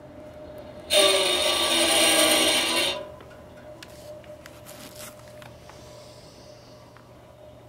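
Radiator letting out a loud, harsh rasping noise for about two seconds, starting about a second in, over a faint steady hum. The cause is unknown to the owner.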